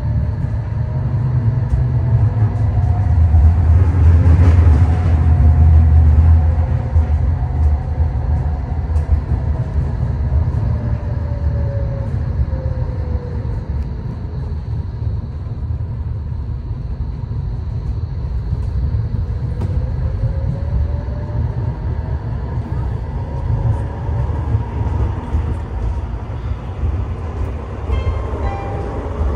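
Interior ride noise of a Bombardier M8D-NF2 low-floor tram in motion: a steady rumble of wheels on rails, loudest a few seconds in. A whine from the electric drive falls in pitch near the middle and rises again later, following the tram's changing speed.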